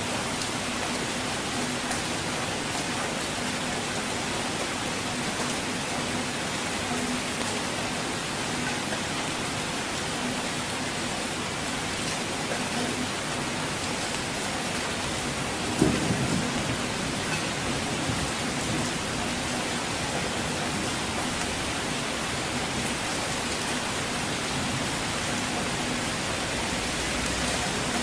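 Steady rainfall hiss, with a sudden clap of thunder about sixteen seconds in that rumbles low and dies away over a couple of seconds.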